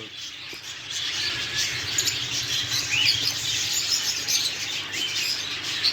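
Many caged pet birds, small parrots such as cockatiels among them, chirping together in a continuous overlapping chatter of short high calls, over a steady low hum.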